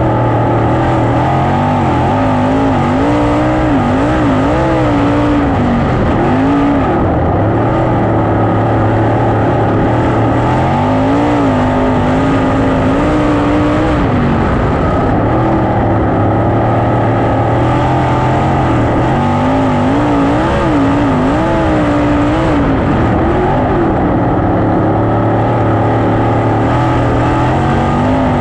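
410 sprint car's V8 engine heard from on board, running hard, its pitch rising and falling again and again as the car lifts into the turns and accelerates out of them.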